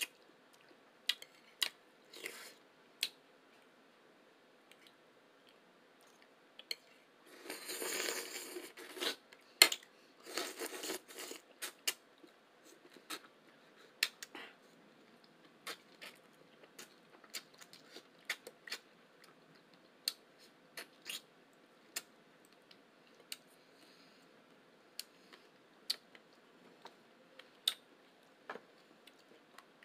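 Close-miked eating: many sharp mouth clicks and chewing smacks scattered throughout, with two longer stretches of crunchy, rustling noise about eight and ten seconds in.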